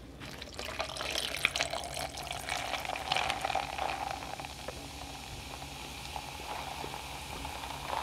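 Carbonated ginger ale poured from a can into a plastic cup, fizzing and crackling. The pouring tone rises in pitch as the cup fills.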